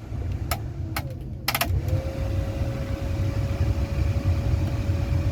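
2005 Ford F-150 running at idle with the air conditioning blowing, a steady low rumble. A few sharp clicks come in the first two seconds, and a steady whine of one pitch comes in about two seconds in and holds.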